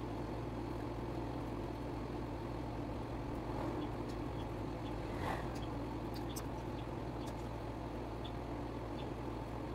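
Hands working yarn with a crochet hook: a few faint, scattered ticks and a brief soft rustle over a steady low background hum.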